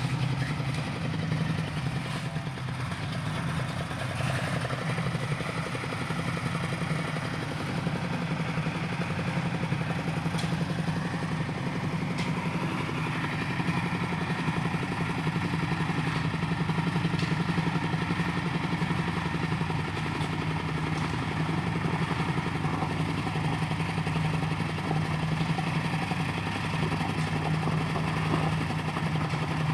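An engine running steadily at a constant speed, with a steady low hum and some clatter.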